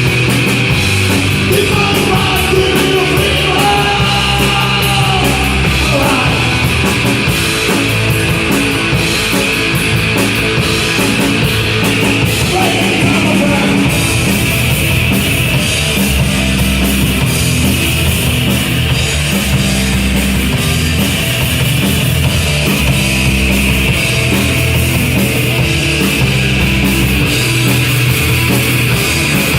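Punk rock band playing live, loud and continuous, with guitars and drums driving a steady beat and a few brief sung lines.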